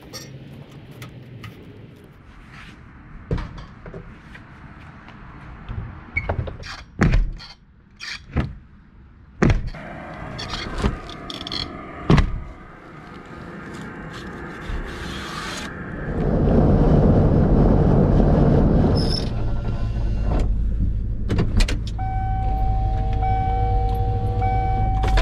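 Scattered sharp knocks and taps while an aluminum door shoe is fitted to the bottom of a steel door. Then, from about two-thirds in, a vehicle engine runs steadily. Near the end a repeating electronic chime sounds while the vehicle's door stands open.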